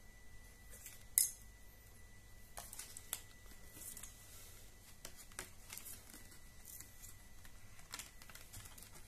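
Hard plastic parts of a bike-computer mount and its accessories being handled and set down on a table: light scattered clicks and taps, the sharpest one about a second in.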